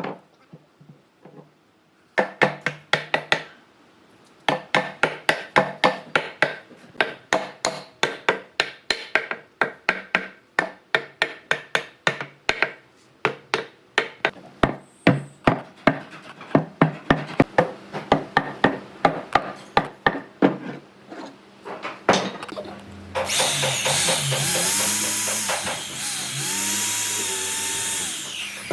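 Rapid hammer blows on wood, about three a second, run for most of the stretch. Near the end a power tool starts and runs steadily with a wavering whine.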